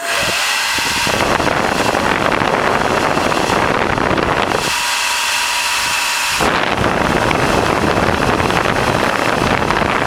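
T3 Featherweight Gold ionic hair dryer switched on and blowing, a steady loud rush of air with rumble from the airflow hitting the microphone. The rumble drops away for a moment in the middle as the dryer is turned.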